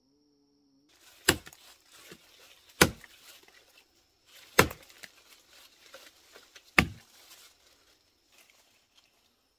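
Four heavy, dull chopping blows, one to two seconds apart, with rustling and small knocks between them.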